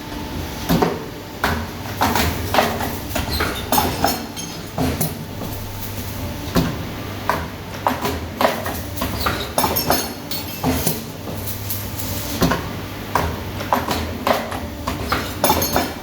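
CNC wire bending machine running: frequent sharp metallic clicks and clanks at an uneven pace as the wire is fed and bent, over a steady low motor hum.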